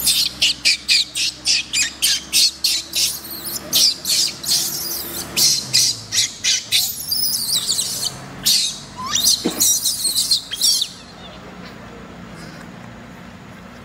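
Baby monkey screaming in a rapid series of shrill, high-pitched bursts, about three a second. The bursts stop abruptly about eleven seconds in.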